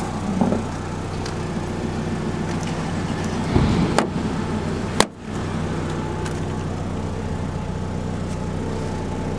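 A 2007 Ford Focus's 2.0-litre four-cylinder engine idles steadily. Two sharp clicks sound about four and five seconds in, the second one louder, as the fuel filler door is opened by hand.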